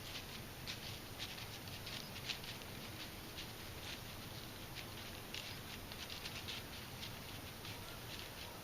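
Deer moving and feeding at a corn pile in dry leaves: light, irregular crunches and crackles, several a second, over a faint steady hiss.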